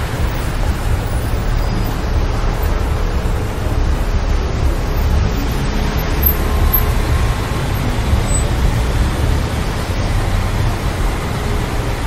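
Steady city road traffic noise, mostly a low rumble of passing cars and buses.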